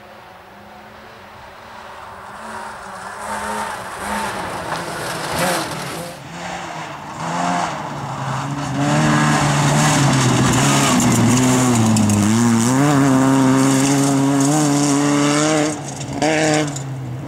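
Opel Astra GSi rally car's 2.0-litre four-cylinder engine at full throttle on gravel, growing louder as it approaches, its pitch dropping and climbing again several times through gear changes. It is loudest and steady as the car passes close, then drops sharply near the end with a short burst of revs after.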